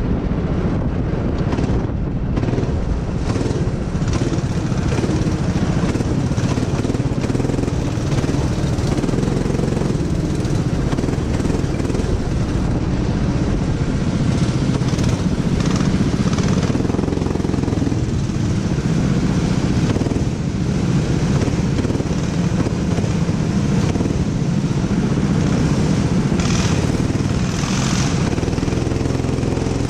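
Rental go-kart engine running at speed, heard close up from the driver's seat, its note rising and dipping with the throttle.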